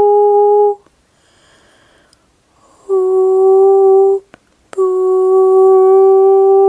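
A woman's voice toning long held notes on one steady pitch, a sung hum in light-language channeling. The note breaks off about a second in for a breath, comes back, pauses briefly about four seconds in, and resumes with a slight glide.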